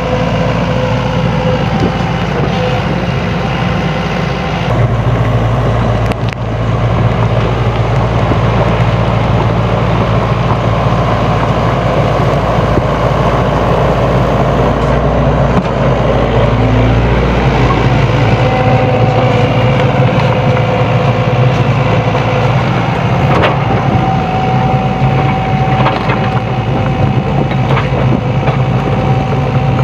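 SANY SY75C mini excavator's diesel engine running steadily under working load, with a thin whining tone over it; the engine note gets louder and deeper about five seconds in.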